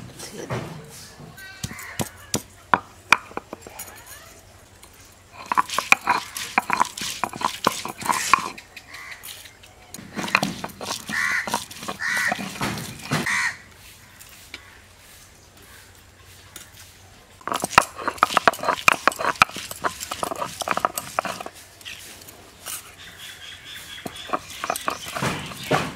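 A crow cawing three times, about a second apart, partway through. Around it are bursts of sharp clicks, taps and scraping.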